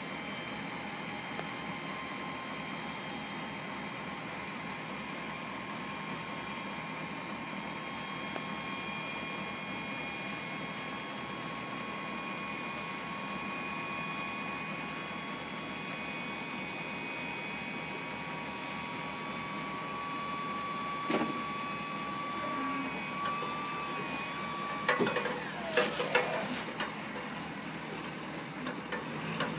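Dump truck tipping a load of leaves: the engine and hydraulic hoist run with a steady whine as the bed lifts. A few knocks and thumps come near the end as the load slides out.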